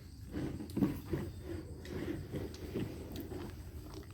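A person eating a mouthful of rice and fried fish: irregular soft chewing sounds with a few small clicks.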